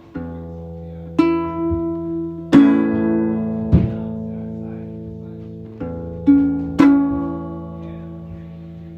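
Slow music on a plucked string instrument: single notes and chords struck every second or so, each ringing out and fading, over a sustained low bass note.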